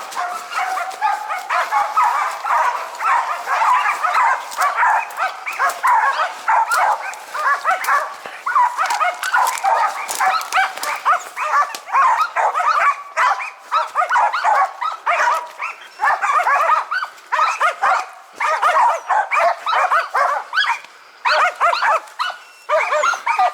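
Several Karelo-Finnish laikas barking rapidly and without pause, their barks overlapping, as they bay a marten treed in a pine.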